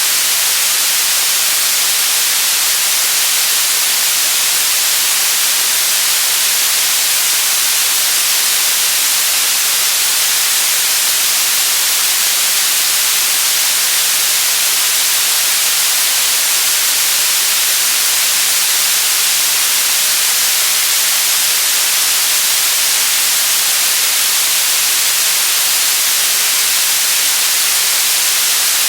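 Steady electronic static hiss, loud and unchanging, weighted toward the high end like white noise.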